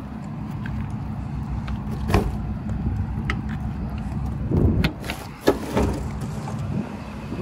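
Rear-door locking latch of a Kögel semi-trailer being handled: a few separate metallic clicks and clanks, the loudest about halfway through, over a steady low rumble.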